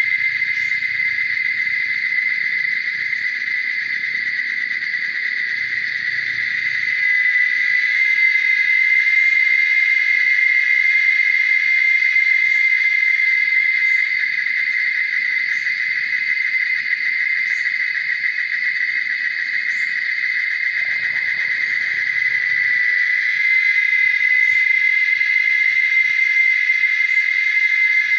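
Loud, steady drone of an insect chorus, one unbroken high buzz with no pauses. A brief low rumble comes in about three quarters of the way through.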